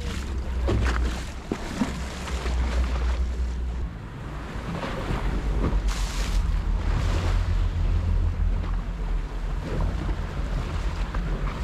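Tour boat's motor running at sea, with water splashing and wind on the microphone. The low engine hum shifts about four seconds in.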